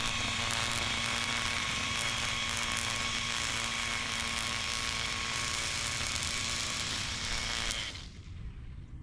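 Toro Revolution Grandstand battery-powered mower running with a steady high whine over a low rumble. The whine cuts off sharply near the end, leaving only a quieter low rumble.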